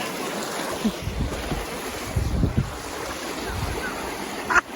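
Rushing stream water, a steady wash of noise, with wind buffeting the microphone in low gusts around the middle.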